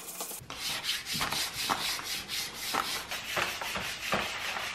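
Self-adhesive vinyl film being smoothed down onto an MDF table top, a plastic card rubbing over it in short repeated strokes.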